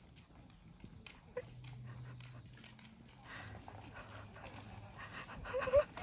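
A steady high insect drone with short, repeated high chirps, and a person's stifled laughter under it. A brief pitched voice sound near the end is the loudest moment.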